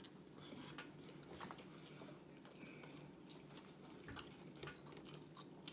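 Faint chewing of fried catfish, with scattered soft clicks of the mouth and food.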